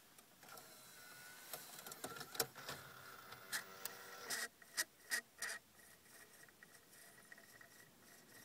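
Alpine CDA-9815 car CD head unit's slot-loading mechanism drawing in a disc: a motor whir with a string of sharp clicks, then a quieter steady high whine while it tries to read the disc. The unit is faulty and fails to read discs, making sounds that are called strange.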